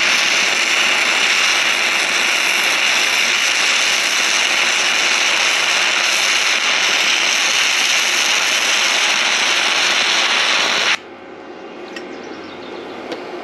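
Simder SD5010 Pro MIG welder at about 90 amps, its arc sizzling steadily as a bead is run on steel. The arc stops abruptly about 11 seconds in when the trigger is released, followed by a few faint ticks.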